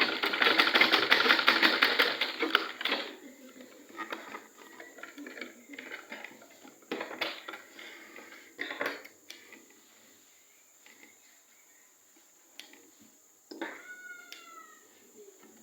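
Sewing machine stitching quickly for about three seconds, then stopping, followed by scattered clicks of the machine and fabric being handled. Near the end comes a short high-pitched cry.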